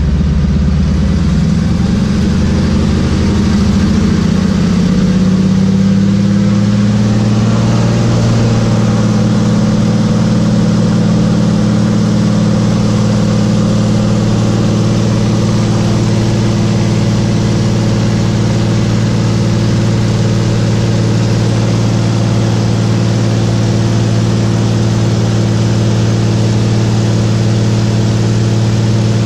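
A single-engine floatplane's piston engine and propeller running, heard from inside the cockpit. The engine note climbs over the first several seconds as power comes up, then holds steady while the plane runs across the water.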